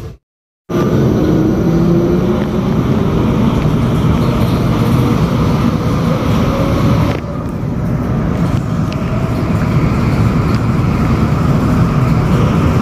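Medellín Metro electric train running, heard from inside the passenger car: a steady, loud rumble of wheels and running gear on the rails. There is a short rising whine about a second in. The sound starts after a brief gap of silence.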